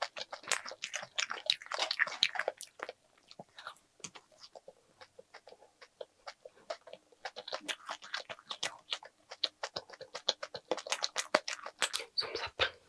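Close-miked chewing of a crunchy snack: a dense run of crisp crunches and mouth clicks, busiest in the first three seconds and again in the later part.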